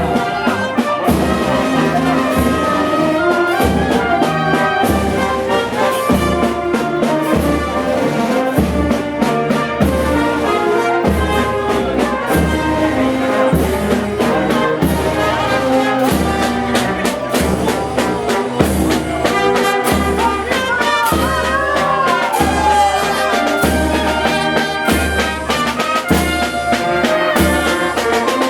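Brass band playing a processional march, trumpets and trombones over a steady, regular bass drum beat.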